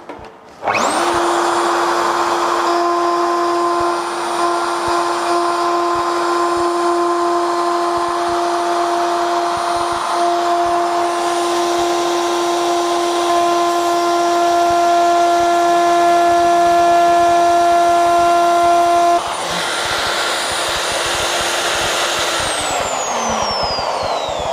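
Triton plunge router spinning up, then running with a steady high whine while its ball-bearing-guided trim bit cuts plywood, then switched off and winding down with a falling whine near the end.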